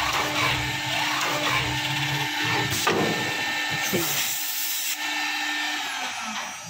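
Multi-function CNC panel drilling machine running, its spindles and dust extraction drilling holes into a melamine-faced particleboard panel, with a steady hum and a couple of sharp knocks. The machine noise dies down near the end.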